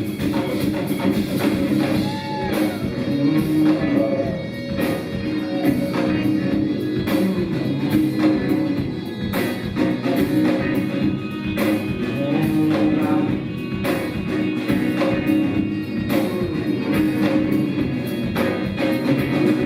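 Live rock band playing, with guitar and drum kit over steady bass, drums hitting in a regular beat.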